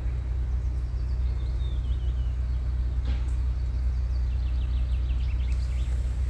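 Steady low hum of a VR Sr1 electric locomotive, with a small bird chirping in quick runs twice over it.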